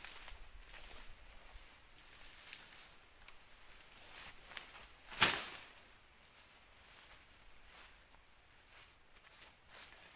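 Steady high-pitched insect chorus in an oil palm plantation, with scattered rustling and one sharp knock about five seconds in.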